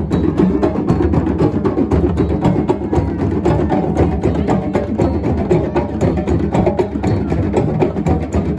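Percussion music with fast, dense drum and block strikes that run on without a break.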